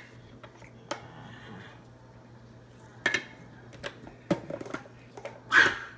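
Scattered plastic clicks and knocks from a small electric food chopper being taken apart and handled after pureeing: the motor is off. A few separate knocks, with a louder clatter near the end.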